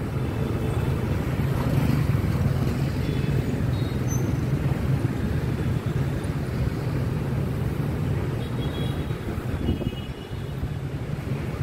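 Street traffic made up mostly of motorbikes and scooters, with some cars, passing in a steady rumble of small engines and tyres. A few faint horn toots sound, most clearly late on.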